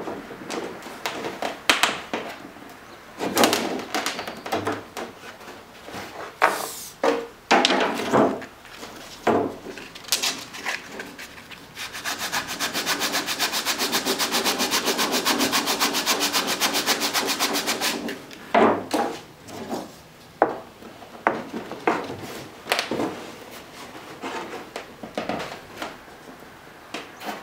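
Cedar strips knocked and handled with scattered wooden clicks and taps; about twelve seconds in, a hand sanding block is rubbed quickly back and forth along a cedar strip's edge for about six seconds, an even rasping that is the loudest sound.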